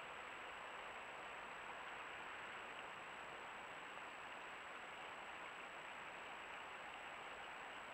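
Steady hiss from a Browning trail camera's microphone and circuitry, with a constant high-pitched electronic whine above it. There are no distinct footsteps, rustles or calls.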